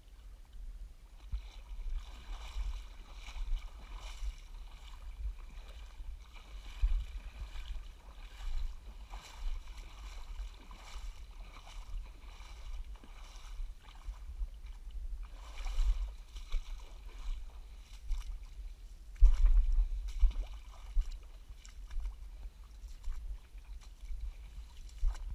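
Shallow water sloshing and splashing in irregular bursts as a person wades through a mangrove field, over a constant low buffeting rumble on the microphone. The loudest splash comes about three-quarters of the way through.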